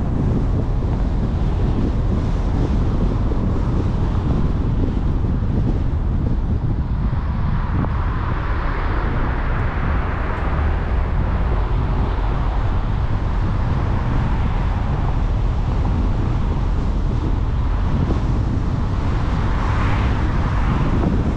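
Car driving at city speed: steady low road rumble with wind noise on the car's microphone. A broader hiss swells twice, about a third of the way in and again near the end.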